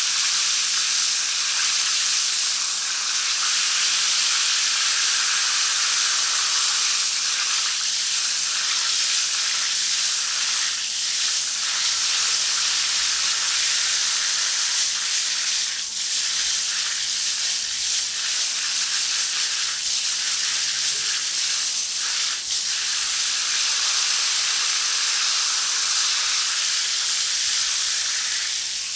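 Shower spray running steadily: a continuous hiss of water jetting from the shower head and splashing down, with small brief changes in the spray about midway and again a little later.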